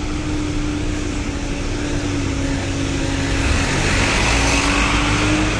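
Motor vehicle engine running nearby: a steady hum over low rumbling street noise, growing louder about four seconds in.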